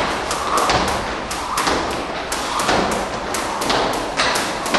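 Skipping ropes slapping the floor as several people jump rope at once: a fast, uneven run of sharp taps, about four a second.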